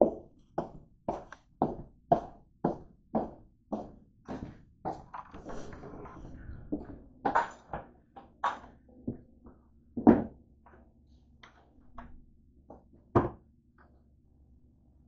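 Footsteps on a hard plank floor, about two steps a second, stopping about five seconds in. Brief rustling follows, then a few separate thumps and knocks, the loudest about ten seconds in.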